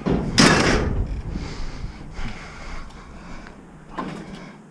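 Metal scrap being shoved into a loaded pickup bed: a loud metallic scrape and clatter about half a second in, trailing off into lighter rattling, with a sharp knock near the end.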